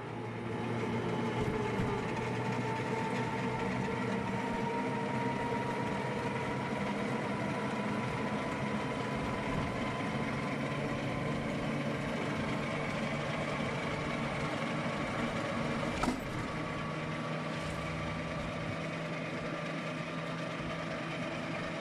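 Engine of a moving motor vehicle running at a steady cruising speed, with road noise, heard from on board. There is a single short knock about 16 seconds in.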